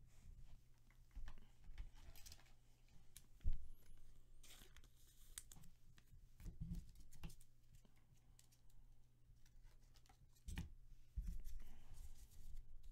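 Trading cards being handled on a table: faint rustling and sliding of card stock with scattered light clicks and a few soft knocks, the loudest about three and a half seconds in.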